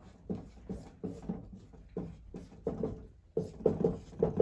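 Dry-erase marker writing on a whiteboard: a run of short squeaking strokes, about two a second, as figures are drawn.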